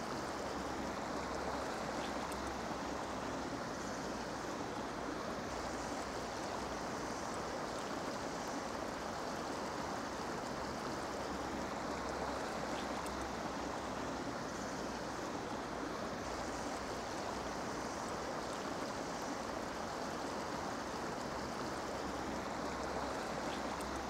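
Shallow mountain stream running over a gravel bed: a steady, even rush of water.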